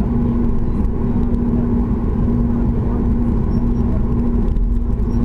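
Steady drone and rumble of a Boeing 737's engines heard inside the passenger cabin, with a steady hum running through it.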